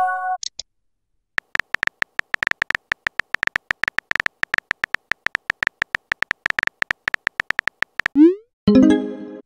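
Typing sounds from a texting-story app's virtual keyboard: a fast, uneven run of short key clicks for about six and a half seconds. Near the end comes a short rising whoosh as the message is sent, then a brief chime-like tone. The first half second holds the tail of a notification chime.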